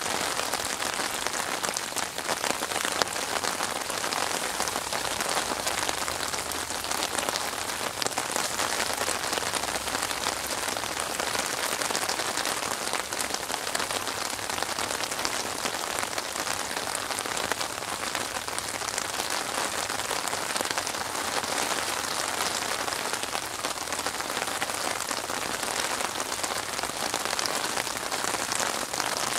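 Steady rain falling on open water: countless drops striking the surface in an even hiss that neither builds nor fades.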